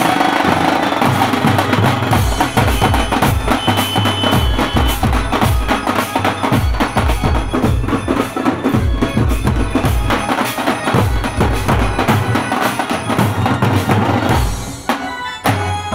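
Drums of an Indian band baaja beating a fast, dense rhythm, with big double-headed bass drums hit heavily under quicker, lighter drum strokes.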